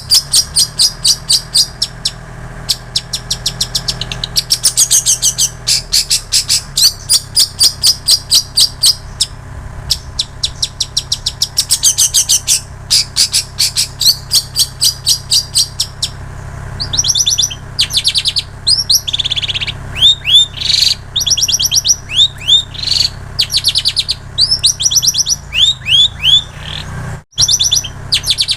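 Long-tailed shrike (cendet) singing a loud song of fast, high repeated chips that changes about halfway through to quick down-slurred whistled notes. The song is filled with mimicked phrases of plain prinia and canary.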